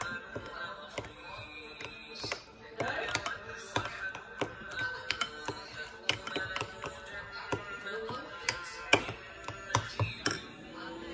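A metal spoon clicking and scraping against a small glass bowl as a thick sauce is stirred, with the sharpest clicks near the end, over background music.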